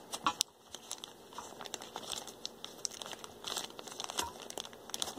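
Clear plastic bag crinkling and crackling in irregular bursts as it is handled and pulled at to get it open, with aluminium knobs inside.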